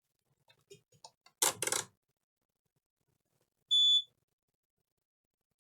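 Multimeter continuity beeper sounding a single short high beep, under half a second, as the probes are checked for a short on a laptop motherboard. Faint clicks of the probes, and a brief loud rustle about a second and a half in.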